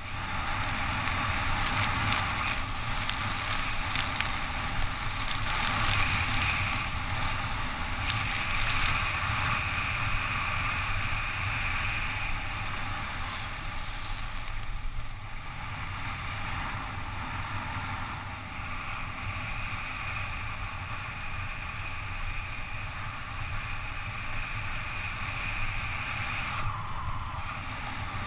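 Wind rushing over a helmet-mounted camera, with bicycle tyres hissing on wet asphalt during a fast road descent. A steady rush with a low rumble.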